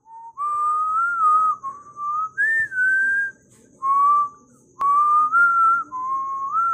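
A person whistling a slow tune in held notes with small slides between them, in short phrases separated by brief pauses.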